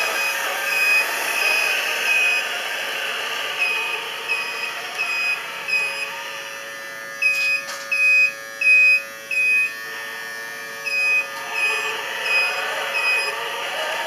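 Reversing beepers on radio-controlled model construction trucks: a steady train of short, high beeps, a little under two a second, with four much louder beeps about halfway through, over a steady background noise.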